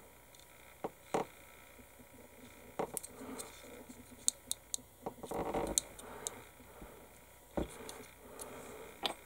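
Small plastic model kit parts clicking and tapping as they are handled and pressed together, a scattering of light clicks with a short rustle a little after five seconds in.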